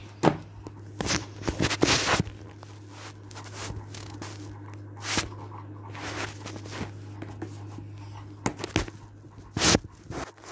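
A series of short, irregular rustles and scrapes, with no steady rhythm, over a steady low hum. The rustles and scrapes are handling noise from the moving phone and nearby objects.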